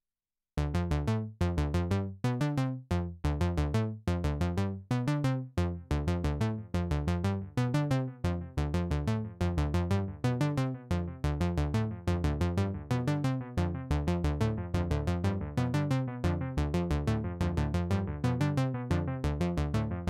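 KORG Monologue analog monophonic synthesizer playing a sequenced pattern of short, plucky low-pitched notes through a Donner Yellow Fall delay pedal, with echoes trailing each note. The pattern starts about half a second in. Past the halfway point the echoes fill the gaps between notes as the pedal's knob is turned.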